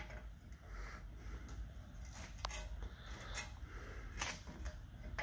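Faint scattered clicks and light metal taps as a car's disc brake caliper and its hardware are handled and fitted over the rotor, over a steady low hum.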